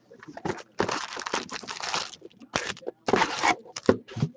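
A 2013-14 Contenders hockey card box being opened and its foil-wrapped packs pulled out: cardboard and foil rustling and crinkling in irregular bursts, the longest about a second in, with a few light clicks.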